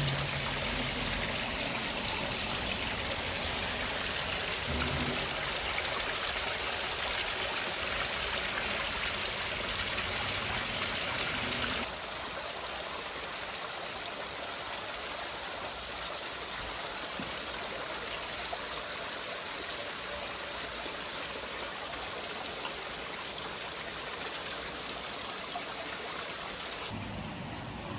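Water pouring from a drain outfall over a concrete lip and splashing onto stones: a steady rushing splash. It drops in level about twelve seconds in.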